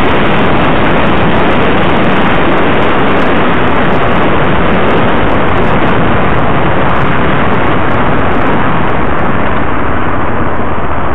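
Loud, steady wind rushing over the microphone of a camera riding on a moving vehicle, drowning out almost everything else.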